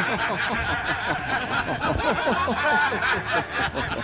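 Several men laughing together, a continuous run of short, falling, overlapping laughs.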